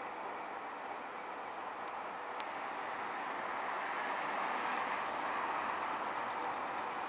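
Class 20 diesel locomotive, with its English Electric V8 engine, running as it approaches slowly along the track. The sound grows a little louder about four seconds in.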